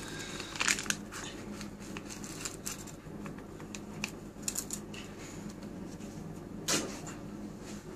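Steady low hum, typical of aquarium equipment, under scattered crackles and clicks; two sharper clicks stand out, one about a second in and one near the end.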